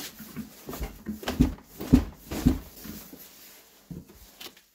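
Cast-iron bench vise being cranked shut by hand on a flexible TPU part: a string of irregular short knocks and creaks from the handle and screw, easing off near the end.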